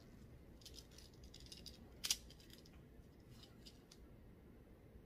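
Faint scattered clicks and light rattling from a boxed jewelry item and its packaging being handled as it is unwrapped, with one sharper click about two seconds in.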